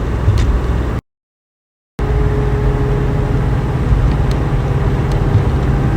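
Cabin sound of a 1969 Mustang's 428 V8 cruising on the road, with engine and road noise. The sound cuts out for about a second, then returns with a steady droning tone over the running noise.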